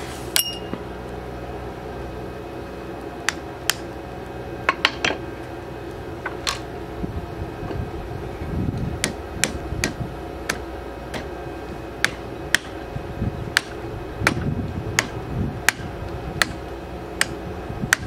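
Hammer blows on the seized, freshly torch-heated pulley and clutch hub of an air conditioning compressor held in a vise, driving to free it: sharp metallic strikes, a few scattered at first, then a steady run of about one and a half blows a second from halfway through.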